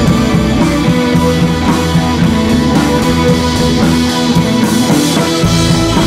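Loud background music track, continuous throughout.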